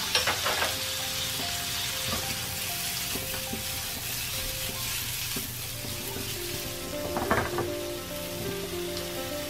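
Vegetables sizzling steadily in butter in a nonstick frying pan over a gas flame. Two brief louder bursts come near the start and about seven seconds in as the pan is tossed.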